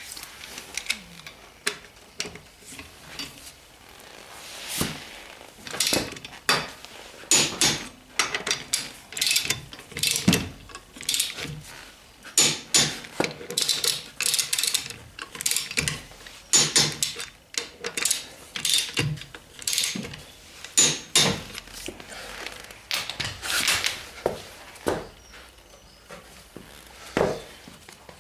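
Click-type torque wrench ratcheting as wheel bolts are tightened to about 110 Nm, in repeated short bursts of clicking with sharper clicks between them.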